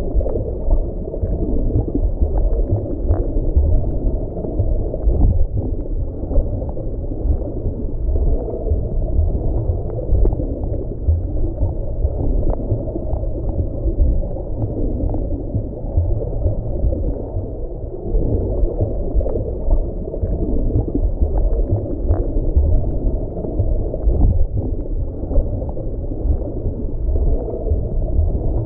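Underwater ambience: a steady low rumble with a shifting, gurgling middle and faint scattered ticks, muffled, with nothing high-pitched.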